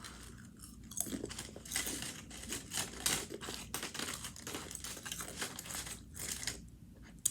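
A child chewing and crunching on a taco close to the microphone, with many irregular crisp crunches. The crunches die down about six and a half seconds in, and one sharp click comes near the end.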